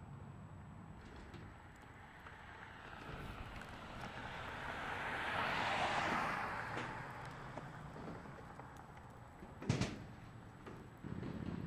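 A vehicle passing by, its noise swelling to a peak about six seconds in and then fading away. A brief sharp knock comes near the end, and just before the end a steady low engine hum starts up.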